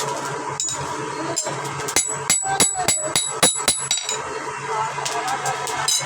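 Hammer striking steel on an anvil with a bright metallic ring: a quick run of blows, about four a second, beginning about two seconds in, with a short break and then more blows near the end.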